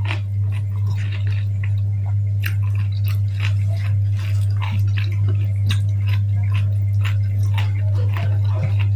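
Close-up chewing of food eaten by hand, with raw cucumber dipped in sambal, heard as many small irregular wet mouth clicks. A steady low hum runs underneath and is the loudest sound.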